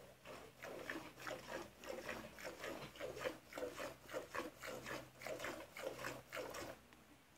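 Cow being milked by hand: rhythmic squirts of milk hitting the milk in a metal pot, about three to four squirts a second, stopping near the end.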